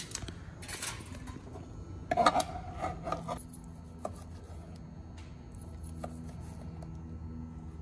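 Aluminium foil crinkling over the first couple of seconds as it is pulled off a grilled flank steak. Then quieter slicing with a knife through the steak on a plastic cutting board, with a few light taps.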